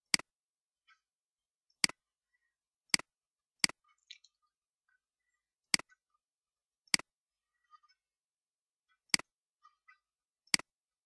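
Computer mouse button clicked eight times at uneven intervals, each a sharp click followed at once by a softer release click.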